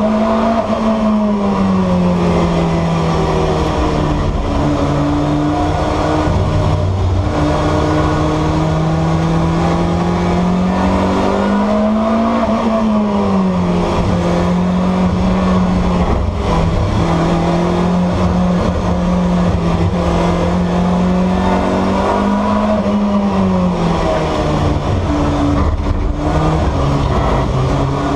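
BMW M3 E30's four-cylinder S14 engine running at fairly steady revs, its pitch rising briefly and falling back about three times, roughly every ten seconds.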